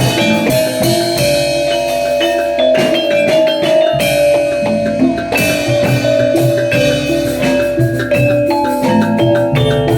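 Javanese jaranan gamelan music: tuned bronze metallophones and gongs struck with mallets in a dense, steady pattern, over drums.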